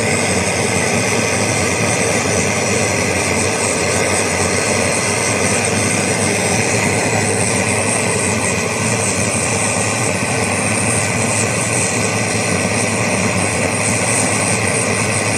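Pressurised liquid-fuel camping stove burning at full flame, its burner fully heated and glowing: a steady, even roar with a low hum underneath.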